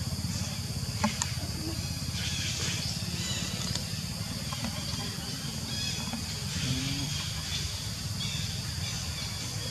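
Outdoor ambience: a steady low rumble and hiss, with faint high chirps now and then and a single sharp click about a second in.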